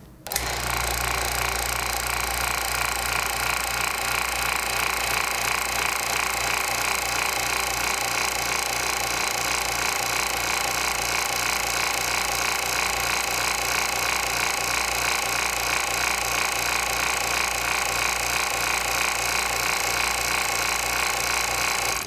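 Electric rotary vane vacuum pump switching on and running steadily with a fast, even mechanical rattle over a low hum, pumping the air out of a bell jar. It cuts off right at the end.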